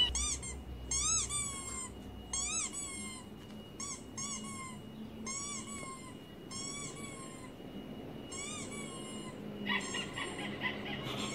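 Recorded squeaky-toy squeaks played through a laptop's speakers: a series of short rise-and-fall squeaks, many in quick pairs, about one pair a second. Near the end a different, rougher run of sound takes over.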